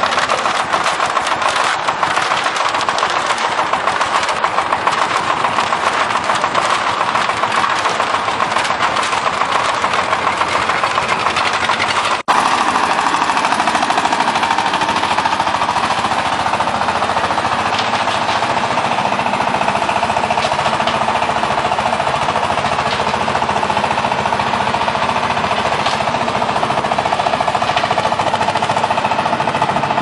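Concrete mixer drum turning with a loud, continuous rattling clatter. It drops out for an instant about twelve seconds in, then carries on with a steadier hum under the rattle.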